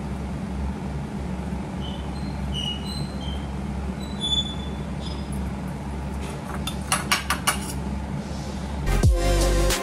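Green chillies being cut with a small knife into a small steel bowl. A few light metallic pings come first, then a quick run of crisp cutting clicks, over a steady low hum. Music comes in just before the end.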